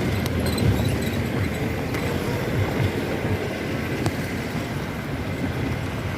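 Steady rumble and road noise of a moving vehicle, with a few light knocks.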